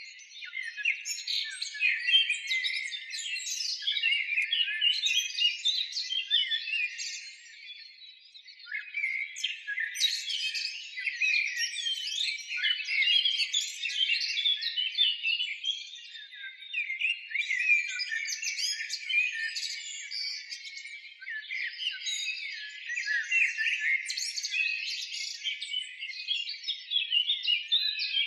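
A dense chorus of many small birds chirping and twittering, swelling and easing off every several seconds, with brief lulls about eight and sixteen seconds in.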